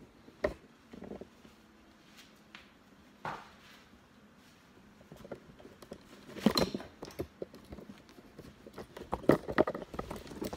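Irregular knocks, bumps and rustles close to the microphone: handling noise as a squirrel monkey climbs over and grabs the phone on its tripod. A dense cluster of knocks comes about six and a half seconds in, and more come near the end.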